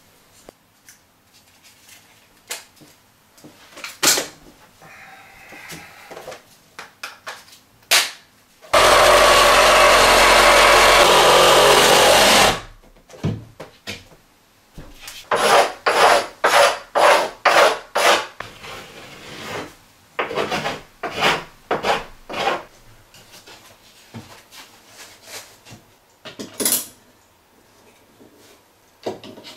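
Cement-board work: scattered knocks and handling noises, then a loud power tool running steadily for about four seconds, followed by a run of quick scraping strokes, about three a second, on HardieBacker cement board.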